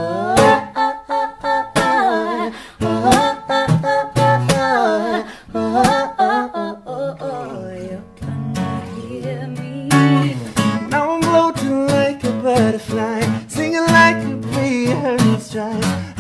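Music: strummed acoustic guitar with singing in wordless, sliding vocal runs.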